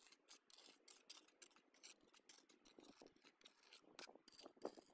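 Faint, irregular scrapes and scratches of a steel pointing trowel working flexible pointing compound along cement-tile ridge caps and scooping it from a plastic tub.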